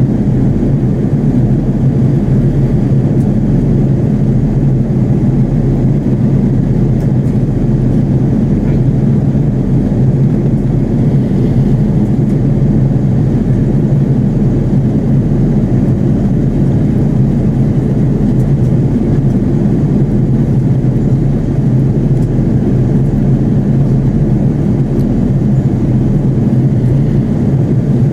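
Steady cabin noise of an Airbus A330-300 airliner in flight: a low, unchanging drone of the jet engines and rushing airflow.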